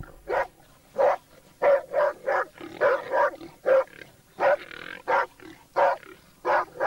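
Laika and Labrador hunting dogs barking in a steady run of short barks, about two a second, as they hold a wild boar at bay.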